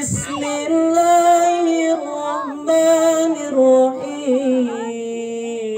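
A man's amplified voice chanting in a melodic Qur'an-recitation style, holding long notes with ornamented turns that step down in pitch.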